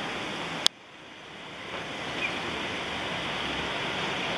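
A sharp click less than a second in, then a sudden drop to a soft, steady rushing street noise that slowly builds back up: traffic and street ambience at a tram junction.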